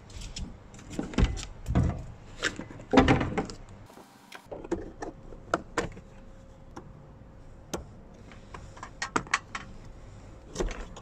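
Hands handling and fitting the plastic door and interior trim of a Jeep Wrangler: irregular clicks, knocks and rattles of hard plastic, heaviest in the first few seconds, with a quick run of sharp clicks later on.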